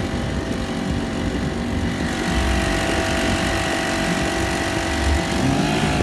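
Honda GX35 35cc four-stroke outboard motor running steadily with the boat under way. Its note gets a little stronger about two seconds in and wavers near the end. A low rumble runs underneath.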